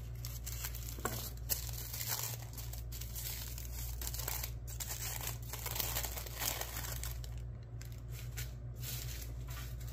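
Packaging crinkling and tearing in irregular bursts as a mailed package is opened by hand, over a steady low hum.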